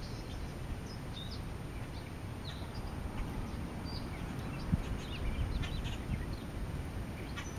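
Outdoor ambience: a steady low rumble with short, faint chirps of small birds scattered through it.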